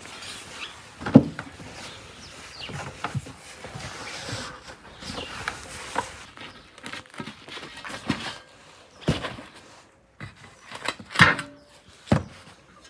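Handling sounds on a tabletop: a cloth rustling and irregular knocks of metal baking pans and loaves being moved. The loudest knock comes about a second in, with another cluster of knocks near the end.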